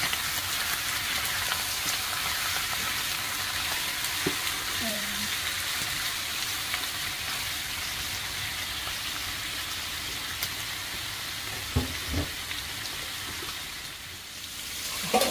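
Raw chicken thighs and wings sizzling in hot oil in a nonstick wok while being stirred with a silicone spatula. Two short knocks about twelve seconds in, and the sizzle dips briefly near the end.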